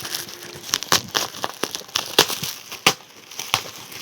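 Parcel packaging crinkling and crackling as it is handled and opened, in a quick, irregular run of sharp crackles.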